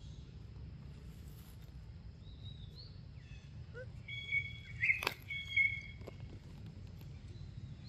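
Forest ambience: a steady low rumble with a few faint bird chirps, then two clear, steady whistled bird notes, one about four seconds in and another about a second later, with a sharp click between them.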